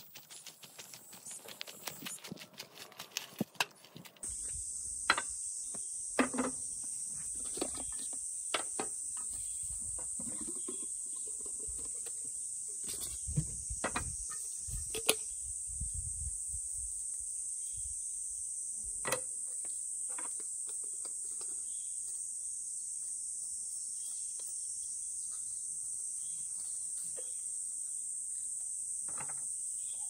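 Footsteps crunching on gravel for about four seconds, then a steady high-pitched chorus of insects singing. Over it come sharp clicks and knocks as a Jetboil stove, its pot, a gas canister and a plastic canister stabilizer are handled and set up on a wooden slat table.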